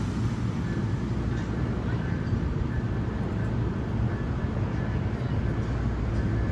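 NJ Transit MultiLevel bilevel passenger coaches rolling past on the rails, a steady low rumble of wheels and cars in motion.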